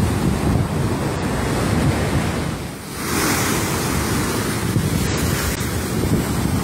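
Storm waves crashing and surging over a seafront terrace, a heavy steady surf with wind buffeting the microphone. The sound dips briefly about three seconds in, then comes back brighter and fuller.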